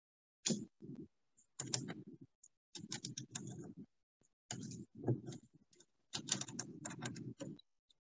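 Rapid small clicks and taps in short runs, with brief pauses between them.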